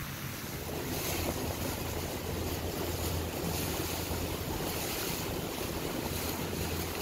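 Small motorboat under way: wind buffeting the microphone and water rushing along the hull over a steady low outboard-motor hum, getting louder about a second in.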